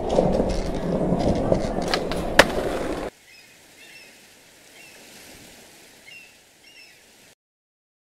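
Skateboard wheels rolling on a hard floor with a couple of sharp clacks, cutting off suddenly about three seconds in. After that comes a much quieter background with a few short high chirps, which stops near the end.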